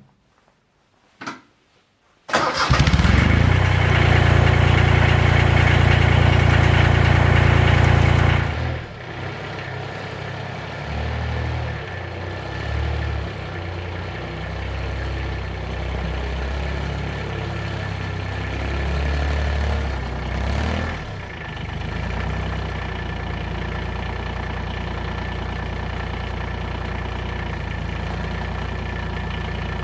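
Tractor engine starting up about two seconds in after two short clicks, running loud for about six seconds, then dropping to a lower, slightly uneven idle.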